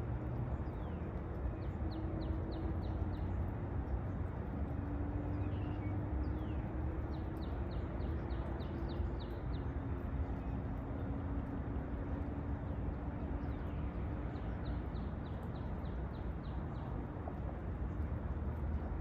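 A songbird singing: three phrases of quick, high repeated notes, each a couple of seconds long, with a few single falling notes between them. A steady low hum and rumble run underneath.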